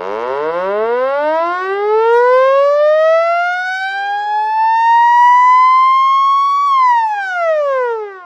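Siren winding up in one long, slow rising wail, then falling quickly about seven seconds in and cutting off abruptly near the end.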